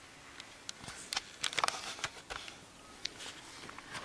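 Faint handling noise: soft rustles and scattered clicks as a handheld camera is turned onto an open paper booklet, busiest about a second in.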